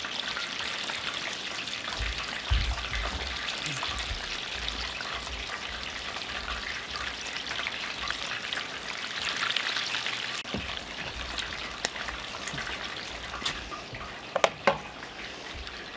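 Chicken wings deep-frying in hot oil in Dutch ovens on a camp stove, a steady sizzle, with a few sharp clicks near the end.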